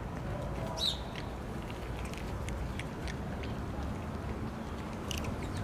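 A cat crunching dry kibble: irregular crisp crunches over a low background rumble, with a brief high chirp about a second in.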